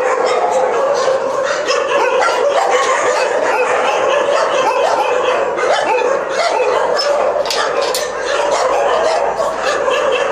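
A pack of dogs barking and yipping all at once, many voices overlapping without a break.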